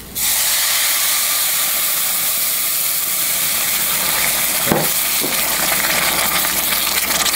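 Salsa and chicken-stock mixture hitting hot toasted rice and oil in a stainless steel saucepan: it bursts into a loud, steady sizzle and hiss of steam the moment it is poured in, bubbling on while it is stirred with a spatula. Two light knocks come about halfway through.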